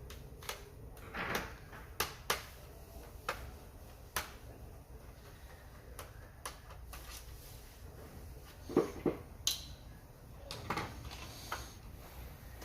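Irregular clicks, taps and short scrapes of hard plastic and metal parts being handled, spaced unevenly, with a cluster of louder knocks about nine seconds in.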